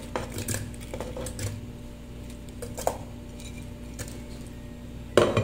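Apple cubes dropped by hand from a plate into a stainless steel blender jug: scattered light knocks and clinks, with a louder knock near the end.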